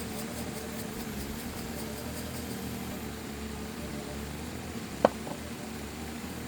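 Steady low mechanical hum, with one sharp click about five seconds in.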